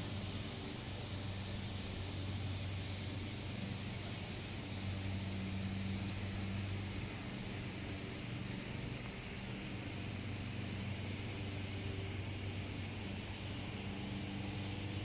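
A steady low mechanical hum that swells and eases in strength, with an even hiss above it.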